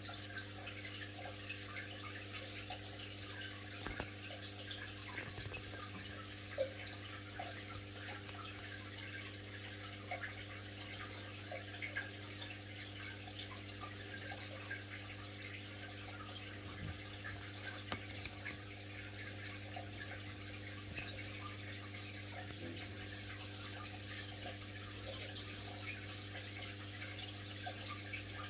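Aquarium filter running: water trickling and fizzing over a steady low hum, with scattered faint ticks and pops.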